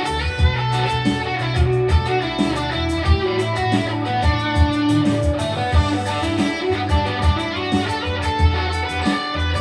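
Instrumental music led by guitar over a bass line, with a steady beat.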